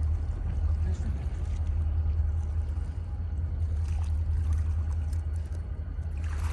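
Wind buffeting the microphone: a steady low rumble with a wavering level.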